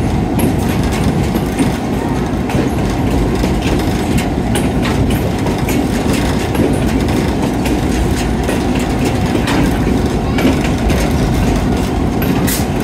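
EMD GP7 diesel-electric locomotive running with a train under way, its engine's steady low drone mixed with the rumble of the rolling train and scattered clicks of wheels over the rail joints.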